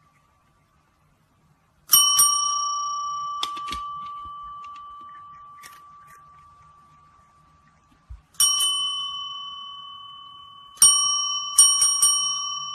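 Service desk bell struck by a cat's paw: two quick dings, then a single one, then three in quick succession near the end, each left ringing and fading away slowly.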